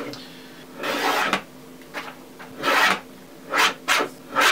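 Packing tape being pulled off the roll and rubbed down by hand over heavy wrapping paper, in five short scraping bursts; the first, about a second in, is the longest.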